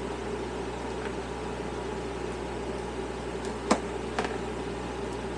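Steady mechanical background hum, like a running air conditioner or fan, with two sharp clicks a little under four seconds in, about half a second apart.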